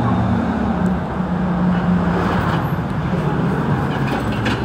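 Steady engine hum and road noise heard from inside a moving city bus, with a constant low drone.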